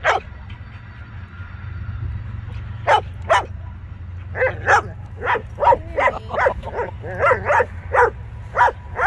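A dog barking: one short bark at the start and two near three seconds in, then a steady run of short, sharp barks at about two a second.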